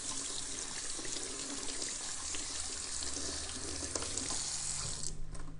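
Kitchen tap running into a stainless steel sink as hands are washed under the stream; the water shuts off suddenly about five seconds in.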